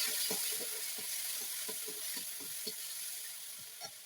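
Tomatoes and spices sizzling in hot oil in a karahi, stirred with quick strokes of a spoon or spatula against the pan. The sizzle slowly dies down.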